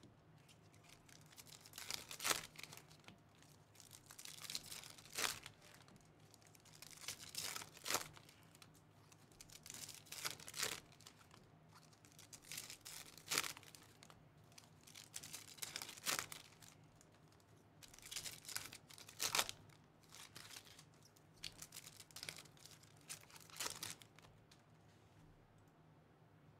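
Topps Chrome baseball cards being slid one at a time off a stack and dropped onto a pile, a short papery swish every two to three seconds. The swishes stop shortly before the end.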